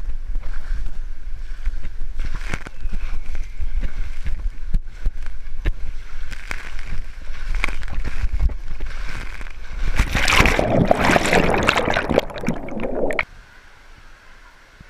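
Water rushing and rumbling as a rider slides down an enclosed water slide tube, with the handheld camera knocking against the slide. About ten seconds in, a loud splash and churning water, which cuts off suddenly near the end to the quieter background of a large water-park hall.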